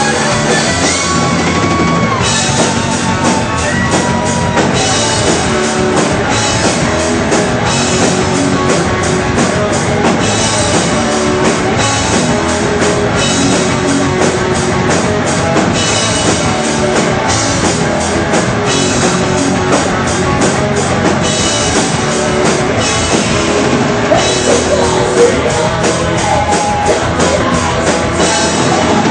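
Heavy metal band playing live: distorted electric guitars, bass and a fast drum kit, loud and dense, with a singer's voice in the mix.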